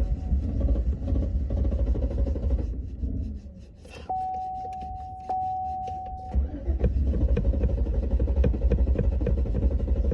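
Truck engine cranking on its starter without catching, stopping a little under 3 s in, then cranking again from about 6 s onward. In the pause a single steady electronic tone sounds for about two seconds.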